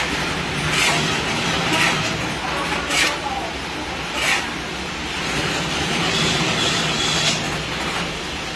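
Satay skewer making machine running with a steady hum, broken by a short, sharp rasping stroke every second or so and a longer rasping stretch about two-thirds of the way through.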